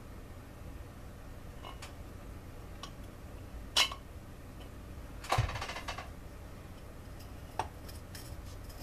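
Metal engine parts being handled on a workbench: a snowblower engine's cylinder and crankcase give a few light clicks, then a sharp click about four seconds in. A little after five seconds there is a thump with a short rattle as the cylinder is set down on the bench. A low steady hum runs underneath.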